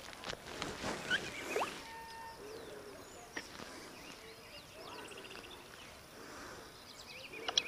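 Mountain bike rolling down a loose, stony dirt track: tyres crunching and the bike rattling over stones, busiest in the first couple of seconds, with short high bird chirps and trills over it.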